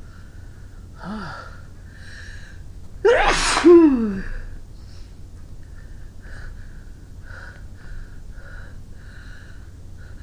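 A woman sneezing once, about three seconds in: a loud two-part burst whose pitch falls steeply, after a short catch of breath. Short breathy sniffs come before and after it; her nose is running.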